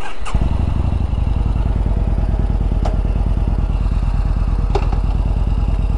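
Yamaha Bolt's air-cooled V-twin engine running steadily, a rapid even exhaust pulse with no revving.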